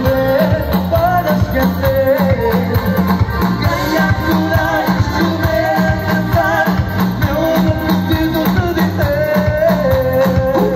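Live band playing amplified pop music through a stage PA: vocals with vibrato over keyboard and a steady drum beat, heard from the audience.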